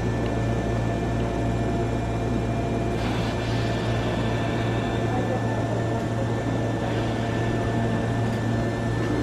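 Hankyu 9300 series electric train standing at a platform with its onboard equipment running: a steady low hum with a few thin, constant whine tones above it. The hiss grows slightly about three seconds in.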